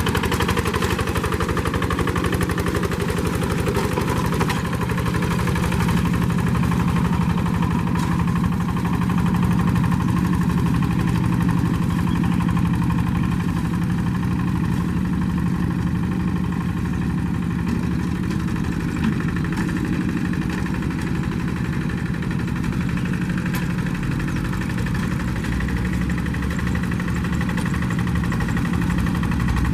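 Rice-field hand tractor's diesel engine running steadily with an even, rapid pulse and no revving up or down.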